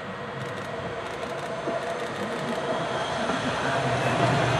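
Electric tram approaching and passing close by on its track, its running noise growing steadily louder, with a steady whine over a low hum that strengthens as it arrives.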